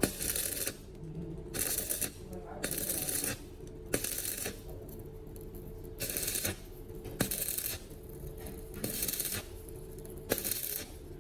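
Repeated rasping strokes of a hand tool on a hard surface, about eight short strokes, some starting with a sharp click.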